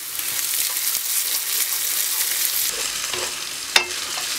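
Rice, onion and peppers sizzling in hot olive oil in a frying pan over medium-high heat while being stirred, with a steady hiss and a few light scrapes. A single sharp knock of the utensil against the pan comes near the end.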